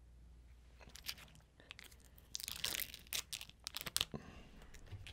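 The sealed lid being peeled off a small plastic tub of McDonald's sweet chili dipping sauce: a run of crackly tearing and crinkling, sparse at first and loudest from about two and a half to four seconds in.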